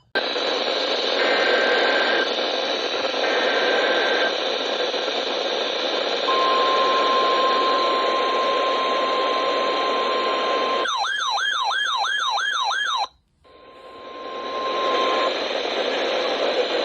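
Weather radio receiver hissing with static, with two short beeps early on, then a steady alert tone from about six seconds in, typical of the NOAA Weather Radio 1050 Hz warning alarm. About eleven seconds in a fast warbling siren tone takes over for two seconds and cuts off abruptly; the static then swells back with the steady tone again for a moment.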